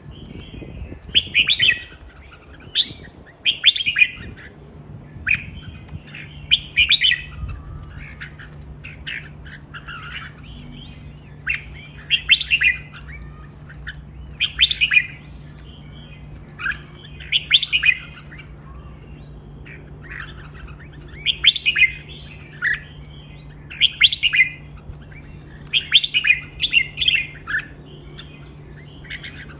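Caged red-whiskered bulbuls singing: short, bright chirping phrases repeated every second or two.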